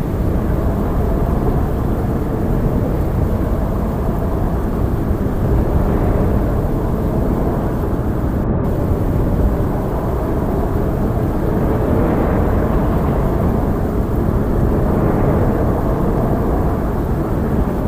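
Loud, steady rumbling noise, heaviest in the low end, with no clear tone or rhythm.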